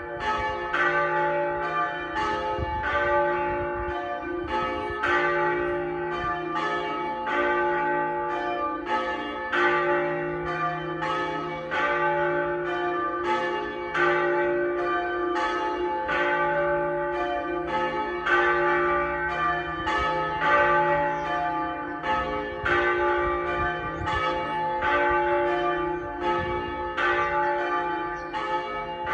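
Pershore Abbey's church bells being rung, fewer than half of the ring in use, with strokes following one another in a steady, even rhythm and each stroke ringing on into the next.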